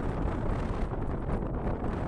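Wind buffeting the microphone, a steady low rushing noise.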